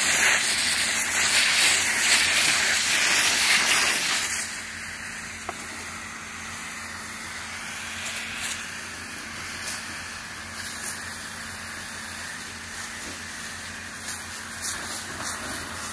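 Fire hose nozzle spraying a water jet onto smouldering forest ground: a loud steady hiss that drops suddenly to a quieter hiss about four seconds in, with a few faint clicks.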